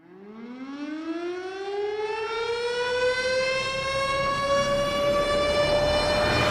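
Air-raid-style siren winding up, its single wailing tone rising steadily in pitch and growing louder, then levelling off near the top near the end.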